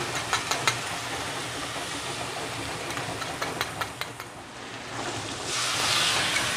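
Spice paste of ground coriander, cumin and chilli mixed with water sizzling in hot oil over frying onions in a steel kadai, with clicks of a metal spatula against the pan. About five and a half seconds in, a louder hiss of steam as more liquid goes into the hot pan.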